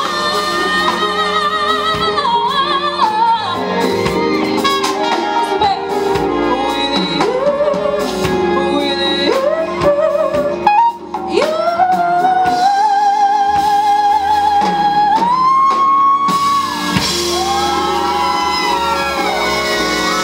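A woman singing live with a band: a soul vocal with wavering vibrato and runs, holding one long note in the middle and then a higher one, over the band's accompaniment.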